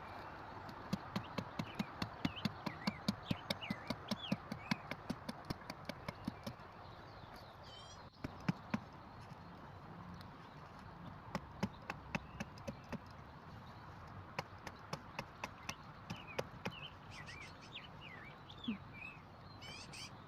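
A blade chopping at a wooden stick to shape a tent stake: quick, even knocks, about four a second, in two runs with a pause between. Birds chirp at the start and near the end.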